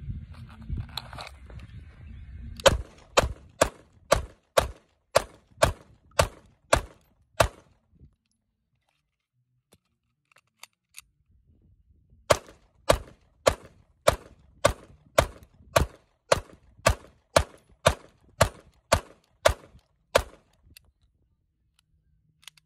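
Beretta 92FS Compact 9mm pistol firing rapidly, about two shots a second: a string of about ten shots that empties the magazine, a pause of about four seconds with a few faint clicks as the magazine is changed, then a second string of about fifteen shots.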